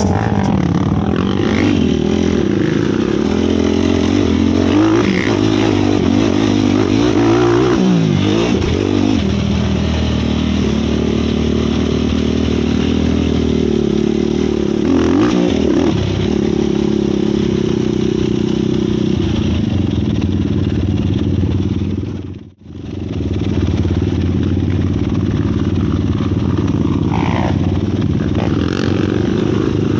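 Sport quad's 450 single-cylinder four-stroke engine running close by, held mostly steady with a few revs rising and falling. The sound drops out for an instant about two-thirds of the way through.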